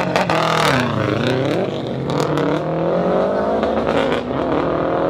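Race cars launching from a standing start and accelerating hard away. The engine pitch dips and comes back up about a second in, then climbs steadily. One of the cars is a Subaru STI.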